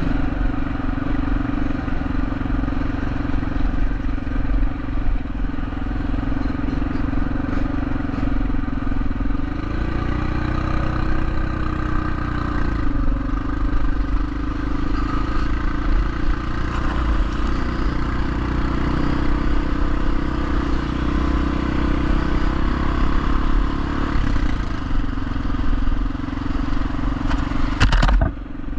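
Motorcycle engine running at a steady speed while riding, its pitch dipping and recovering about ten seconds in. A couple of sharp knocks come right at the end.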